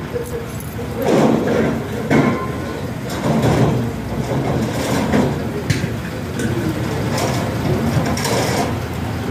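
Steady low rumble of vehicles and engines, broken by irregular knocks and clatter.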